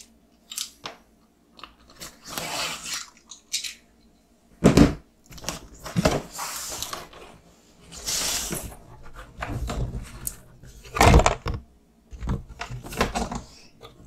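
Cardboard kit box being opened: the tape seals are broken and the lid is slid off, with rustling and scraping of cardboard. Several heavy thumps come as the box is handled, the loudest about five seconds in and again about eleven seconds in.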